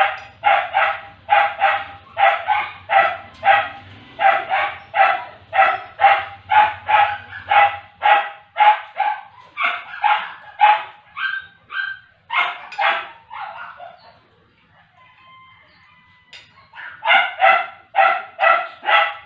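A dog barking over and over at an even pace, about two barks a second. It breaks off for about three seconds, then starts again.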